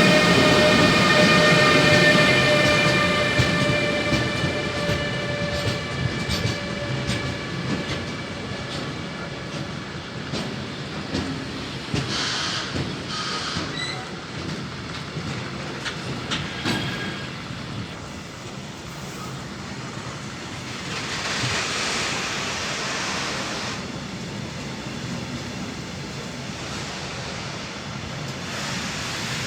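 Electric freight train passing close by. The locomotive's steady whine falls slightly and fades over the first several seconds, then the wagons roll past with clattering wheels and a few brief wheel squeals.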